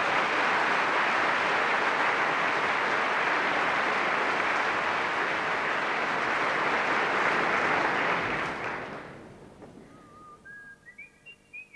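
Concert-hall audience applauding, dying away after about eight seconds. Near the end comes a run of short, high, faint notes climbing step by step in pitch.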